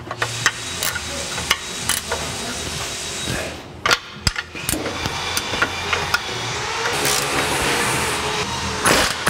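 Pneumatic impact wrench working the last 19 mm bolt off a lower control arm, among many sharp metal clicks and clinks of tool on bolt. The air-tool noise grows thicker near the end.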